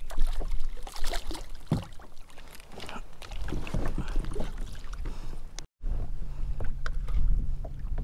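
Irregular knocks and splashing aboard a fishing kayak as a freshly caught speckled trout is landed and handled. The sound drops out briefly about three-quarters of the way through, then a low steady hum runs under a few more knocks.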